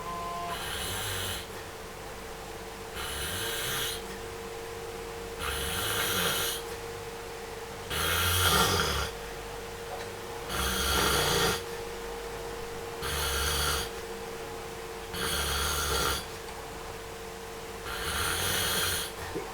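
A person snoring in a slow, even rhythm: one snore about every two and a half seconds, eight in all, over a faint steady hum.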